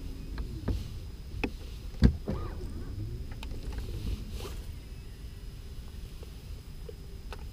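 A fishing rod and reel being cast and reeled in from a boat deck: scattered small clicks and knocks, a sharper knock about two seconds in, over a low steady rumble.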